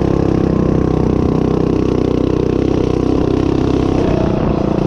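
Predator 212cc single-cylinder four-stroke engine of a DoodleBug DB30 mini bike, Stage 1 kit with the governor removed, running steadily at high revs as the bike is ridden hard over rough ground.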